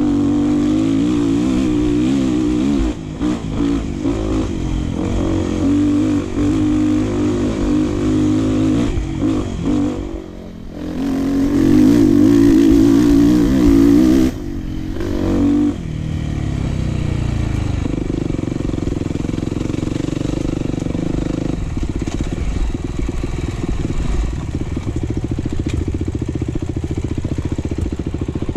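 Enduro dirt bike engine running under changing throttle on a trail. About ten seconds in it dips briefly, then revs hard and loud for a few seconds before settling into a steadier, lower run.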